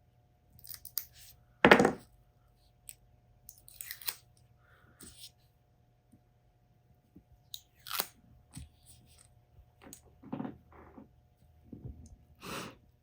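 Protective plastic film being picked at with a small hobby knife and peeled off a flashlight lens: scattered short crinkles, scrapes and clicks, the loudest crackle about two seconds in.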